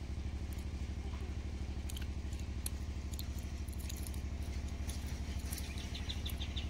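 A small engine running steadily, its low beat pulsing evenly about seven or eight times a second.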